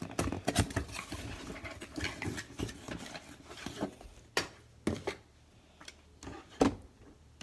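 Cardboard shipping box being opened and its contents pulled out, with rustling and small knocks, then a few sharp clacks of hard plastic graded-card slabs knocking together as the stack is handled.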